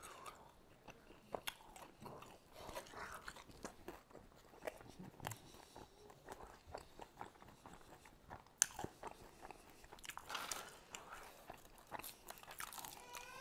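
Close-miked chewing and crunching of fried chicken wings, with many short clicks scattered through it; one sharper click about two-thirds of the way through is the loudest sound.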